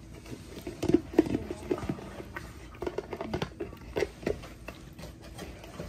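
Great Pyrenees puppy licking and gnawing inside a plastic peanut butter jar, with irregular clicks and crackles of the plastic.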